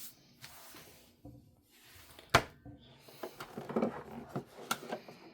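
Hands handling a plastic toy car and its small parts: light rubbing and rustling, with one sharp click about two and a half seconds in and a run of smaller clicks and rubbing near the end.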